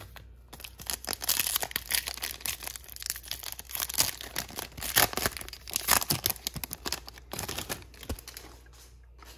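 Foil wrapper of a trading-card pack being torn open and crinkled by hand, a dense run of crackles that dies down about seven seconds in.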